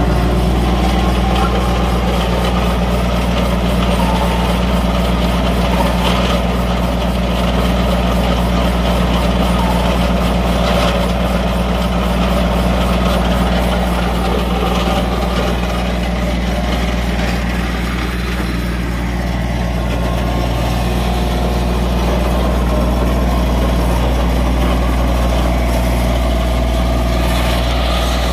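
Drill-and-fill turf aerator running steadily: its engine and auger drills make a constant, unbroken low hum.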